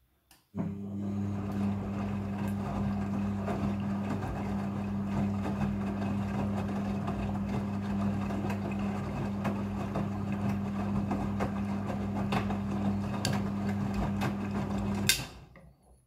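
Front-loading washing machine turning its drum in a rinse cycle: a steady motor hum with water and wet clothes sloshing inside. It starts about half a second in and stops about a second before the end with a sharp click.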